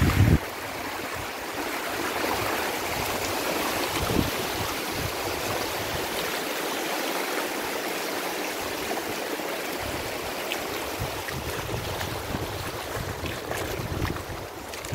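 Tidal floodwater rushing steadily over a fish-pond embankment, the sea overtopping the pond dike. There is a brief low bump right at the start.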